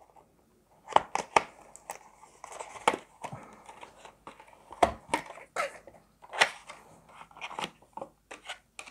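SSD retail packaging being opened by hand: a cardboard box slid from its sleeve and a clear plastic tray handled. Irregular rustles, scrapes and a dozen or so sharp clicks and snaps of card and plastic.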